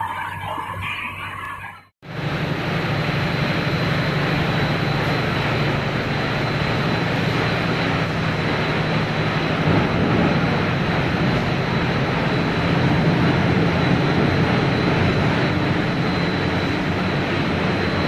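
Fried-snack production line machinery running: a steady, loud mechanical hum and rush with a thin constant high whine. The run comes in after a short cut about two seconds in. Before the cut there is a quieter machine sound with a wavering whine.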